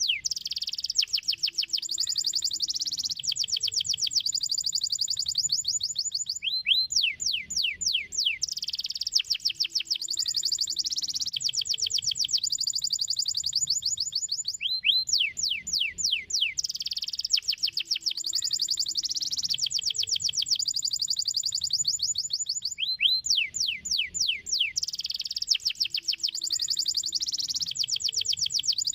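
Domestic canary singing: rapid rolls of short downward-sweeping whistles give way to long, fast high trills. The same phrase comes round about every eight seconds.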